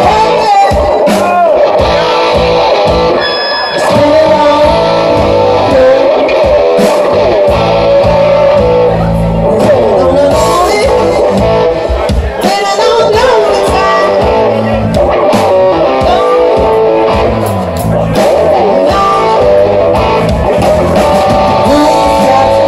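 Live rock band playing: electric guitar, bass guitar and drums, with a woman singing.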